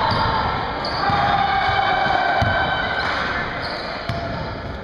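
Basketball being dribbled on a hardwood gym floor, a few sharp bounces among players' running footsteps, in a large echoing gym.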